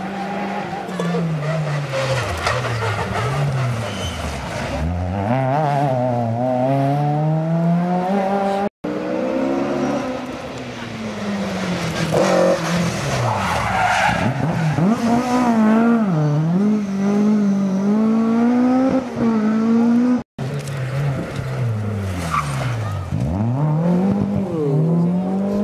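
Rally cars passing one after another at speed on a tarmac stage, among them a Ford Escort Mk2, each engine revving hard with its pitch climbing and falling through gear changes and lifts.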